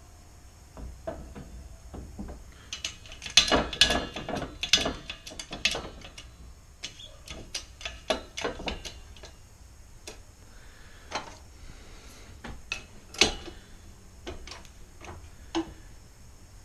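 Irregular metal clicks, clinks and rattles as steel parts and grille mesh are handled and set in place on a hydraulic shop press. They are densest about three to six seconds in and come singly after that.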